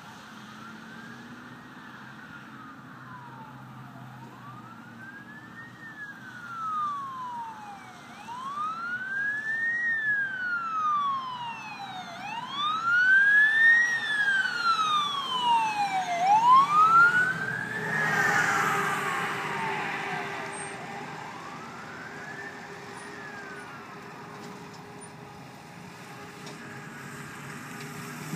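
A 2010 Pierce Velocity fire engine's electronic siren wailing, a smooth rise and fall about every four seconds. It grows louder as the engine approaches, then fades and stops. As the truck goes by, a rush of passing tyres and its Detroit Series 60 diesel swells briefly.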